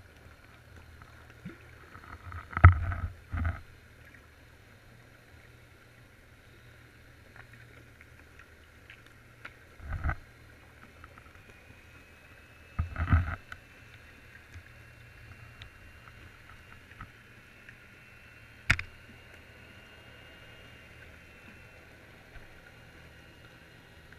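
Muffled underwater sound picked up by a drop camera in its housing: a low steady hum, with a few dull knocks and bumps now and then and one sharp click late on.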